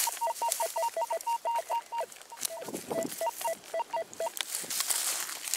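Metal detector giving rapid short beeps over a freshly dug hole, switching between a higher and a lower tone: a metal target still lies in the loosened soil. There is a brief pause in the beeps and a short scuffing noise about halfway through.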